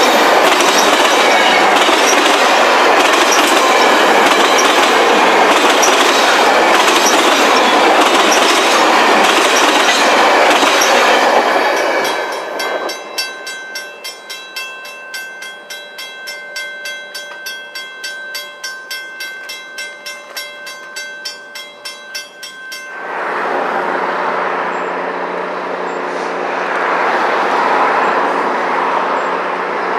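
Heritage passenger cars of the Royal Canadian Pacific train rolling by, the wheels clicking steadily over the rail joints, until they are gone about 12 seconds in. A quieter steady ringing then pulses about two to three times a second, and near the end a distant train's low steady drone comes in.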